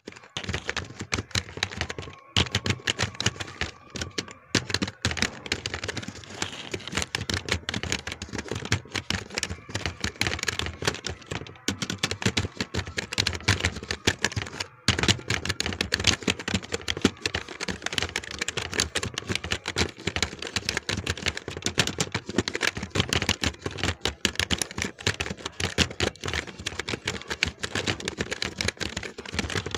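Fast, continuous typing on a computer keyboard: a dense, irregular run of key clicks with a few short breaks.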